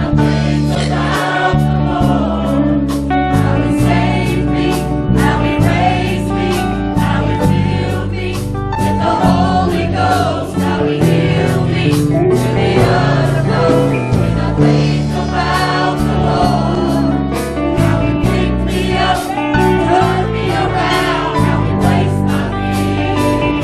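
Gospel worship music: a choir singing over a band, with a steady drum beat.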